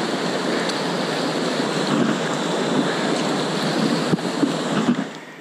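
River water rushing and splashing around a paddled inflatable kayak, with wind buffeting the camera microphone. A few sharp knocks come near the end, and the noise fades away at the very end.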